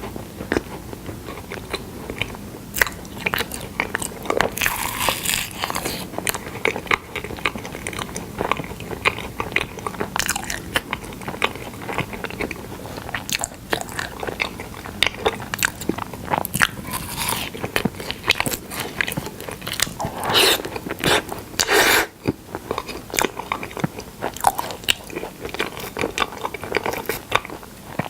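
Close-up chewing and biting while eating honey: a steady run of irregular small crunches and clicks from the mouth, with a few longer, louder chewing stretches, one about five seconds in and a pair near two-thirds of the way through.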